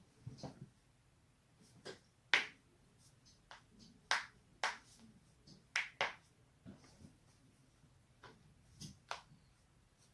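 Human joints cracking: over a dozen sharp pops at uneven intervals, the loudest between about two and six seconds in.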